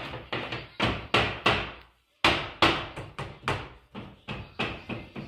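Hammer blows struck in quick, uneven runs of about three a second, with a brief pause about two seconds in.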